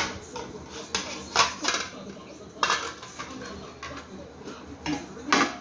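Stainless steel stockpot and its lid clanking and clinking as they are handled: about seven sharp metallic knocks with short ringing, spread irregularly through the stretch.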